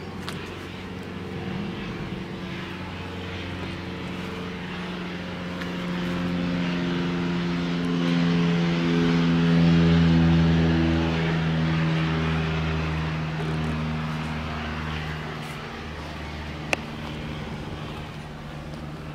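An aircraft passing overhead: an engine drone with several tones that slowly shift in pitch, growing to its loudest about halfway through and then fading away. A single sharp click sounds near the end.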